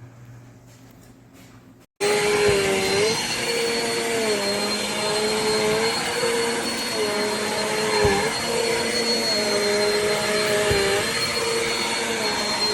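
Eureka NEU10AE5 AirSpeed bagless upright vacuum cleaner running, starting abruptly about two seconds in. Its steady motor noise carries a high whine, and its lower note shifts up and down every second or two.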